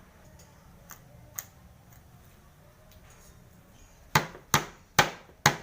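Lemongrass stalks being smashed to bruise them: two light taps, then four hard strikes about half a second apart near the end.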